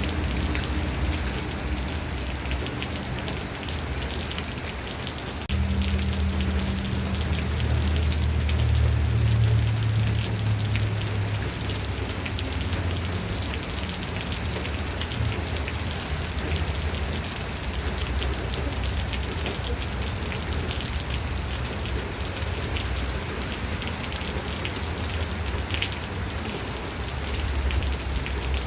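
Steady rain falling on a surface, a dense even patter of drops. A deep low rumble swells about six seconds in, eases off a few seconds later, and builds again near the end.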